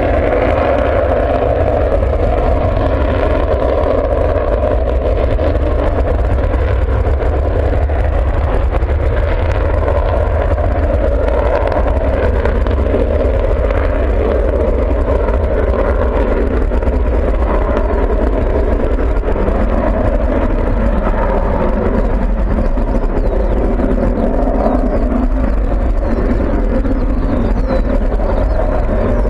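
Panavia Tornado's two RB199 turbofan engines running in afterburner through the takeoff roll, lift-off and climb-out: a loud, steady jet roar.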